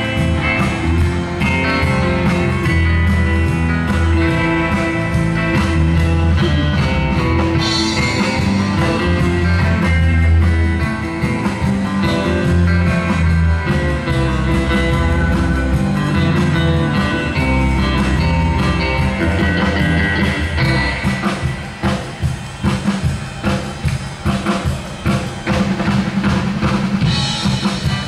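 Live band playing amplified music: electric guitar and electric bass guitar over a drum kit. A little over two-thirds of the way through, the playing turns choppier, with sharp, punchy drum hits.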